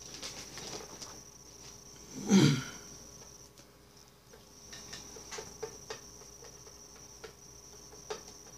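A cricket chirping in a steady high trill that pauses for about a second midway. About two seconds in there is a short loud noise, and later a few light taps and clicks.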